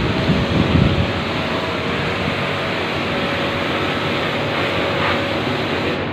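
Steady rushing hiss of a water spray washing a refrigeration condenser coil, over a faint steady machine hum. Wind buffets the microphone in the first second.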